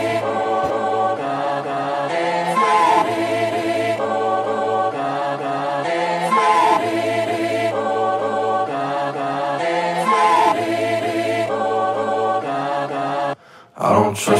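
Background music: sustained choir-like vocal chords that change every couple of seconds, with a brief break near the end.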